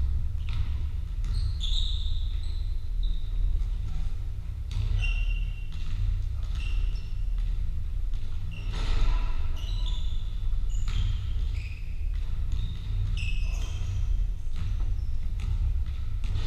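Basketballs bouncing on a wooden sports-hall floor, with short, high squeaks from players' shoes on the court, echoing in the large hall over a steady low rumble.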